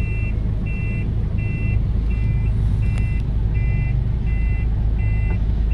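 Reversing warning beeper sounding a steady run of short high beeps, about two a second, over a vehicle engine running at low speed, heard from inside a car's cabin.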